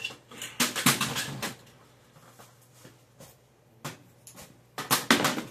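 Knocks, clatter and rustling of a 720 W folding aluminium-bar LED grow light being lifted and moved. The clatter comes in clusters in the first second and a half and again near the end, with a single sharp knock a little before four seconds.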